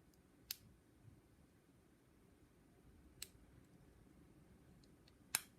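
Three faint, sharp clicks from a pick and tension wrench working the pin stack of an ABUS 72/40 pin-tumbler padlock, spread over several seconds of near silence, the last and loudest near the end: the sound of pins being lifted and setting at the shear line during single-pin picking.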